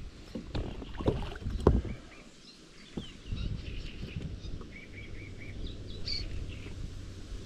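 Small birds chirping, with a run of four short notes about five seconds in and a higher call just after, over a low outdoor rumble. A few sharp knocks come in the first two seconds.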